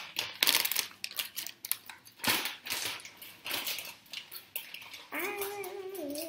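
Quick clicks and clatter of small objects being handled. About five seconds in, a steady held tone begins and carries on.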